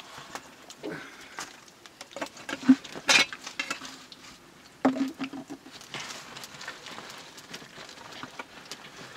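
Metal cooking pots, a lid and a ladle clinking and knocking as they are handled over a wood fire, a few clinks ringing briefly, with the fire crackling throughout in small sharp snaps.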